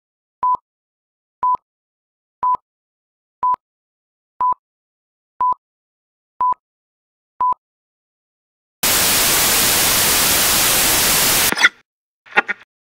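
Film-leader countdown beeps: a short, high, single-pitched beep once a second, eight times. Then about three seconds of loud static hiss that cuts off suddenly, followed by a brief blip or two, as of a TV screen switching off.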